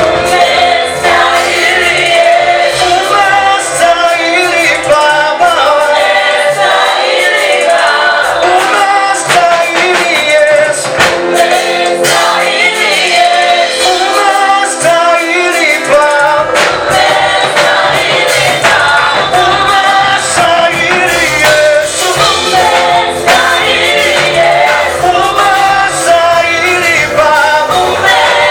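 A gospel vocal group singing a praise song with instrumental backing, continuously and loudly.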